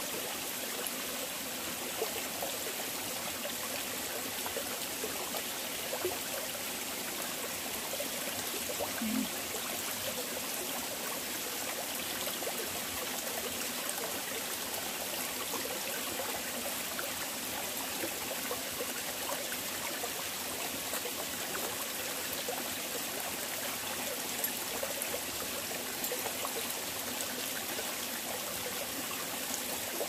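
Shallow mountain stream trickling and running over rocks, a steady even rush.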